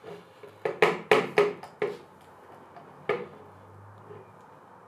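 Hard plastic dinosaur action figure knocking against the tabletop as it is moved: a quick run of four or five knocks about a second in, then one more about three seconds in.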